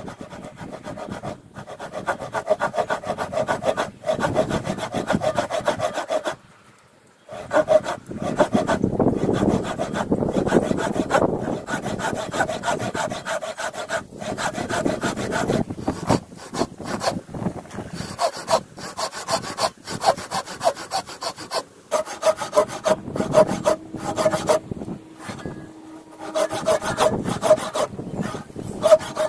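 Japanese ryoba pull saw cutting into a timber post in quick, repeated strokes, a steady rasp of the teeth through the wood, with a short pause about six seconds in.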